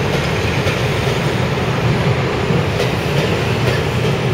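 Railway passenger coaches rolling past close by at speed: a steady rumble of wheels on rail with a few faint clicks from the rail joints.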